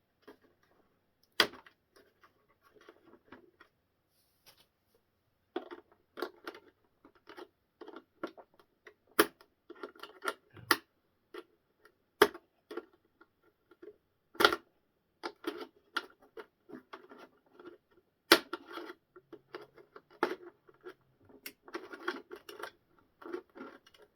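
Small model-kit parts being handled and fitted together: irregular clicks, taps and rattles, with a few sharper knocks as pieces are set down.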